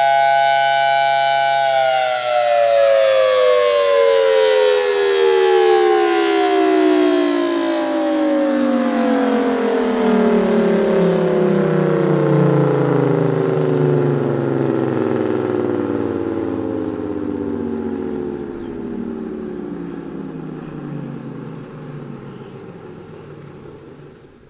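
Civil defense air raid siren holding a steady tone for about two seconds, then winding down: its pitch falls slowly and it fades out over about twenty seconds.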